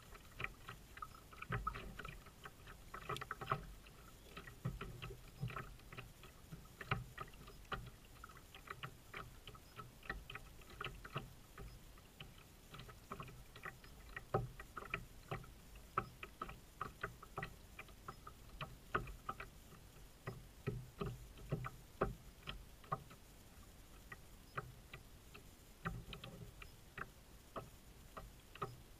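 Irregular light clicks and knocks, a few a second, over a faint low rumble, from a plastic fishing kayak on the water while the angler winds a baitcasting reel.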